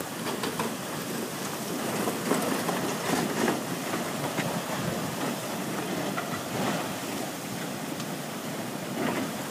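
Flash-flood water rushing down a dry lakebed channel: a steady rushing wash that swells for a couple of seconds, with a few faint clicks.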